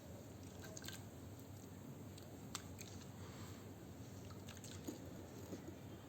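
Faint crackling and squishing of wet sand crumbling in water, with a few sharp little clicks scattered through it.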